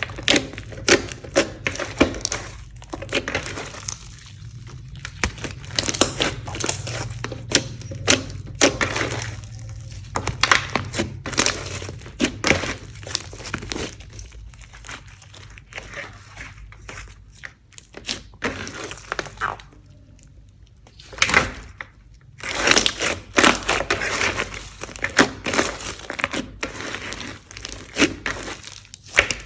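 Hands kneading and squeezing slime, making irregular sticky clicks, pops and crackles, with a brief lull about two-thirds of the way through.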